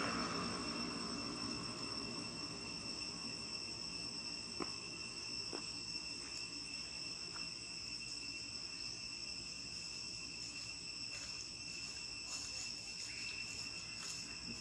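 Steady high-pitched drone of insects, several constant pitches held unbroken. A louder rushing noise fades out in the first second or two, and a couple of faint clicks come about halfway through.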